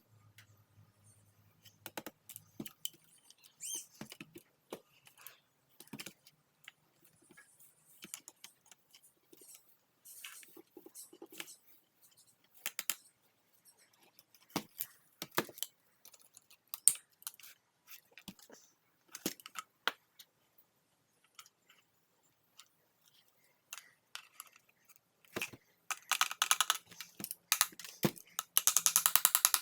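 Hand work on the plastic parts of a Shark vacuum power nozzle: scattered small clicks and knocks as parts are handled. Near the end, a fast, even run of ratchet clicks.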